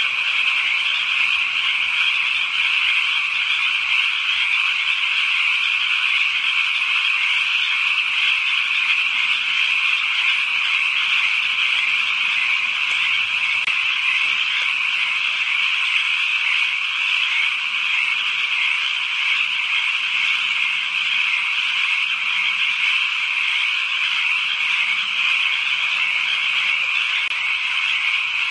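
Dense chorus of many frogs calling at once, the calls blurring into one steady, unbroken high-pitched din.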